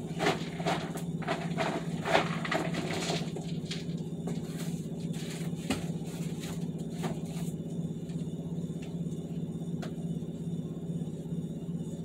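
Dry dog kibble rustling and clattering as it is scooped out of its container. The clatter is dense for the first few seconds, then thins to scattered clicks, over a steady low hum.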